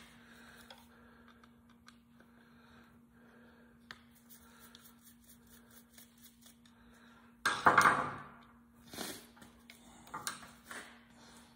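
Small metal parts of a hose reel motor's end cap being handled and unscrewed with a hand screwdriver: scattered light clicks and clinks, a louder clatter lasting about a second two-thirds of the way through, then a few more knocks. A steady low hum runs underneath.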